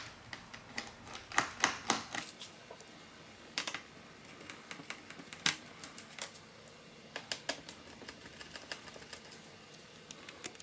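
Small precision screwdriver clicking and ticking against the screws in a laptop's bottom panel as they are backed out: faint, irregular light clicks, a few louder than the rest.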